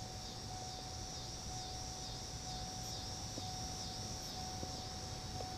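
Insects chirping outdoors in a steady chorus that pulses about twice a second, over a faint steady hum.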